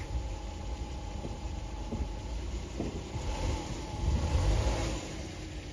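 Van engine running as the van starts to pull away, the engine sound and a hiss of tyres on wet pavement swelling about three to four seconds in.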